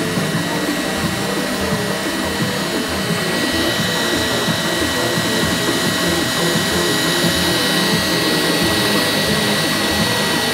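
FDM 3D printer running a print: its stepper motors whir in short bursts of quickly changing pitch over the steady whir of the print-head cooling fan.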